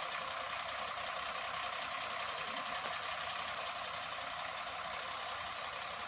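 Ashok Leyland tipper lorry's diesel engine running steadily at low speed as it reverses slowly, heard from a distance as an even, unchanging hum and hiss.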